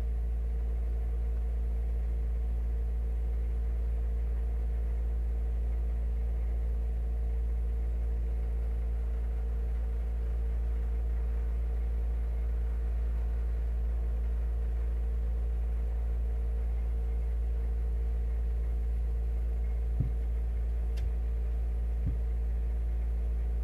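Steady low hum, with a few faint taps near the end as the sneakers are handled.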